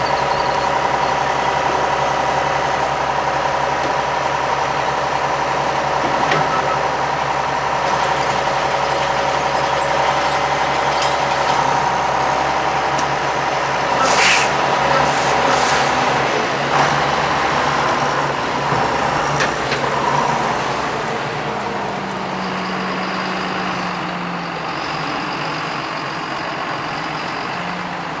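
A John Deere tractor's engine running steadily while working baling machinery, with several short hisses about halfway through. The machinery's steady whine fades and the overall sound eases off in the last third.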